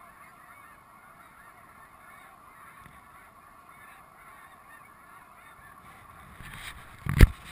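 A large flock of snow geese calling, a dense chatter of many overlapping high honks. Near the end comes a single sharp, loud thump.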